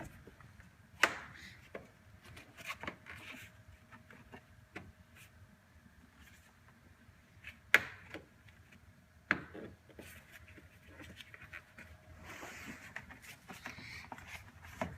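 Rubber weather stripping being pressed back into place by hand, with light rubbing and handling noise and three sharp knocks or snaps: one about a second in, and two more close together about eight and nine seconds in.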